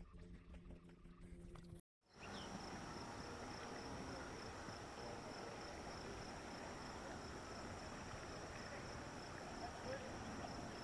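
A faint low hum for the first two seconds, then, after a cut, quiet outdoor evening ambience with an insect's steady high-pitched trill running throughout.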